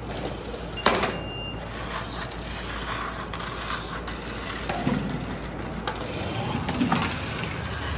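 Line follower robot running on its 600 RPM GB37 geared DC motors over a cardboard track with ramps, against steady hall noise. There is a sharp clack about a second in.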